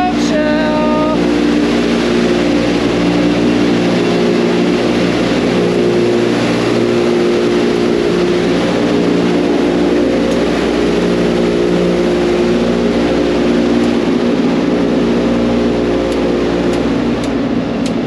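Loud, steady whir of many cooling fans in a crypto-mining container, with several low hum tones that swell and fade against each other.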